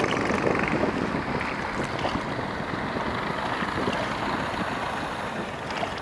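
Steady rushing noise of wind on the microphone and water from a moving boat, easing off slightly.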